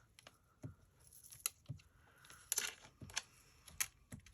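Dot-tipped markers tapped onto paper to make polka dots: a string of about seven light, irregular taps.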